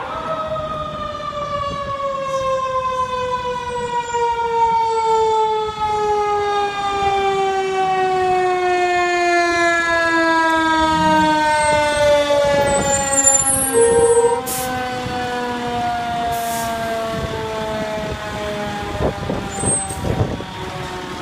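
Fire engine siren winding slowly down in pitch in one long steady fall, with a brief louder, higher tone about fourteen seconds in and a few short knocks near the end.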